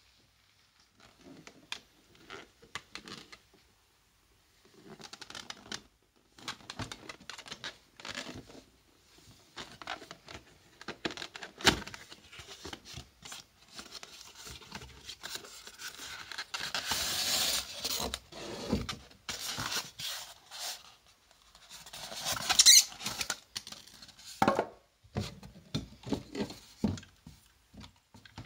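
A cardboard model box being opened and unpacked by hand: flaps pulled open, the card insert slid out and the packaging handled, giving an uneven run of rustles, scrapes and light taps, loudest in two stretches in the second half.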